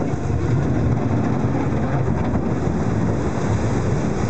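A boat running steadily under way: a constant, loud low engine rumble.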